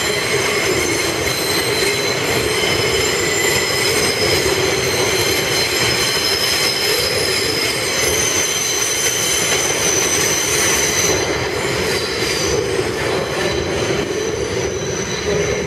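New York City Subway R142A train moving through the station, its wheels squealing in steady high tones over the running rumble. The squeal weakens about eleven seconds in.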